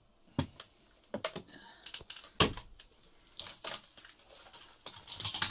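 Irregular knocks and clicks of tools and wood being handled, about a dozen separate hits with short quiet gaps between them, the loudest about two and a half seconds in.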